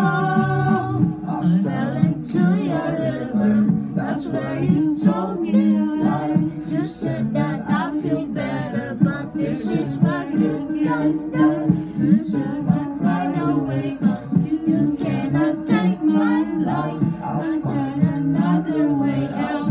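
A boy singing a pop song into a handheld microphone over a backing track with a steady beat.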